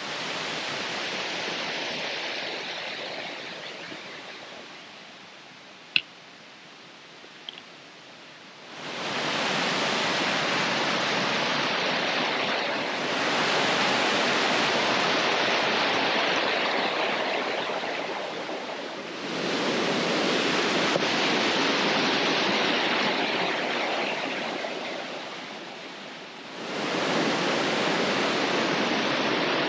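Rushing water of a mountain brook and its cascades, a steady rush without any tone. It fades away over the first several seconds, then jumps up abruptly about nine, nineteen and twenty-six seconds in.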